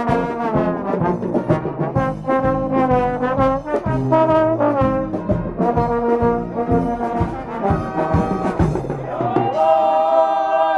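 Dweilorkest (Dutch street brass band) playing a lively tune, trombones and trumpets over drums, ending on a long held chord in the last second or so.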